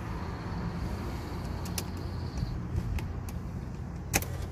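A few sharp clicks and knocks over a low steady rumble inside a car cabin; the loudest click comes near the end.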